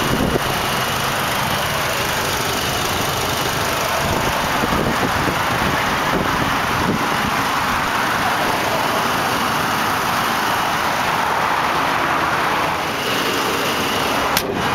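Chevrolet Colorado's Vortec 2800 2.8-litre inline-four idling steadily, heard over the open engine bay.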